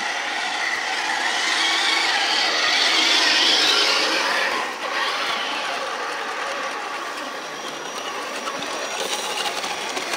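Electric motors and geared drivetrains of radio-controlled scale crawler trucks whining steadily as they crawl past, loudest a couple of seconds in.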